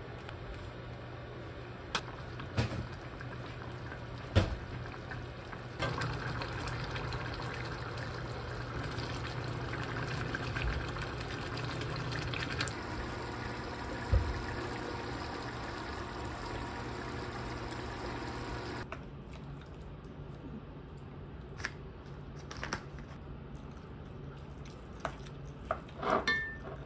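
Stovetop cooking: a pot of soybean-paste stew bubbling under a steady hum, with a few sharp knocks of a wooden spoon against the pot early on. About two-thirds of the way through it gives way to a quieter room with light clinks of a spoon and chopsticks on bowls, growing busier near the end.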